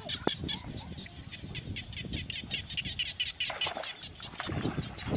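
Birds chirping in a fast, even run of high notes, about eight or nine a second, over low rustling outdoor noise.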